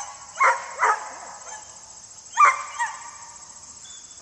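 Herding dog barking while working sheep: four short, sharp barks in two quick pairs, the second pair about two seconds after the first.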